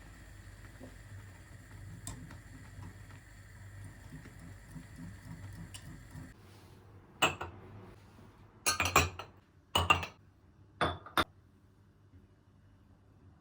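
A steady hum with faint ticks that cuts off about six seconds in, then dishes and glassware being handled, with several sharp clinks in quick succession.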